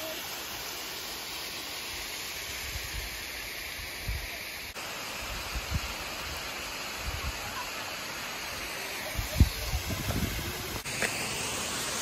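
Small waterfall and its creek, a steady rush of falling and running water. A few soft low bumps come through in the second half.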